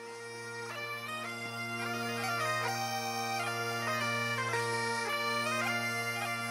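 Bagpipe music: steady low drones, joined about a second in by a chanter melody of held notes stepping in pitch, fading up in level at the start.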